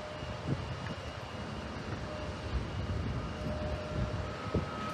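Jet airliner engines rumbling steadily at a distance, with a faint high whine, mixed with uneven gusts of wind buffeting the microphone.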